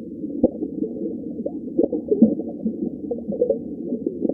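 Underwater sounds from a streaked gurnard: a run of short, low grunts and knocks with small pitch glides, made with its swim bladder.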